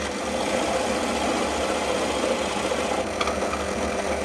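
Electric drill motor running steadily while boring a hole into the top of a wooden log.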